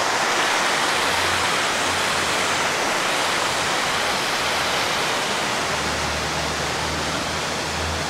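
River water rushing steadily over a small rocky cascade into a pool: an even, unbroken water noise.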